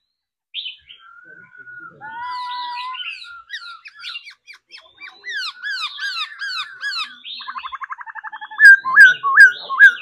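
Caged black-throated laughingthrush singing: varied whistled phrases, then a run of quick repeated down-slurred notes, a fast trill, and loud sharp whistles near the end.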